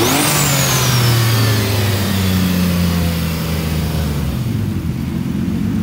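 A car engine revved hard, peaking right at the start. A high whine and the engine note then fall away over the next few seconds as the revs drop back to a steady idle.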